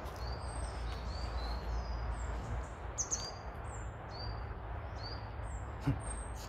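A small songbird singing: a steady run of short, high chirps, about two a second, switching between a higher and a lower note. Low rumble of wind or camera handling underneath, with a couple of soft footsteps on leaf litter.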